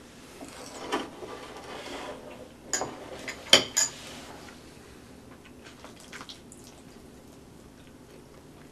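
Metal spoon clinking against a bowl several times in the first four seconds, the loudest about three and a half seconds in, then a few faint taps about six seconds in.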